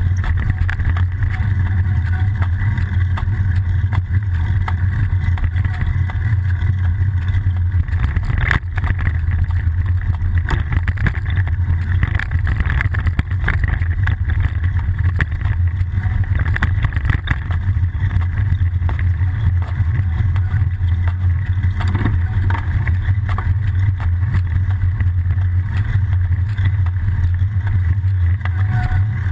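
Steady low rumble of road vibration and wind picked up by a GoPro HERO-960 mounted on a moving bicycle's frame, with a single sharp knock about eight seconds in.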